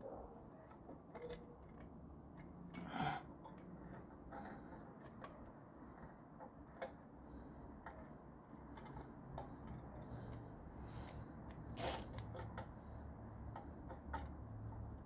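Faint scattered clicks and taps of hands working a screw and a flexible drill-bit extension at a metal sensor bracket, with a louder click a few seconds in and another late on.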